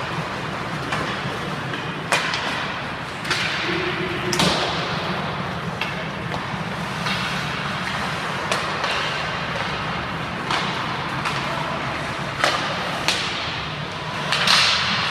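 Ice hockey practice on an indoor rink: sharp cracks of sticks hitting pucks and pucks striking the boards, about eight over the stretch, over steady background noise, with a longer scraping hiss near the end like skates stopping hard on the ice.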